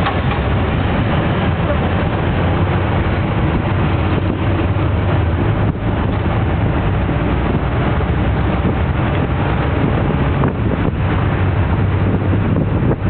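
Jeepney under way: steady engine drone with road rumble and wind buffeting the microphone.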